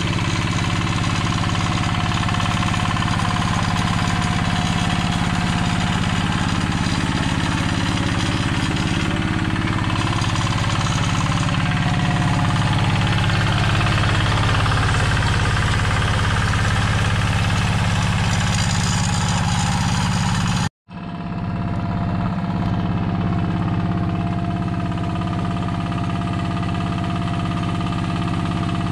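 Yanmar two-wheel hand tractor's single-cylinder diesel engine running steadily under load while plowing a flooded rice paddy. The sound cuts out for a split second about two-thirds of the way through, then the engine continues.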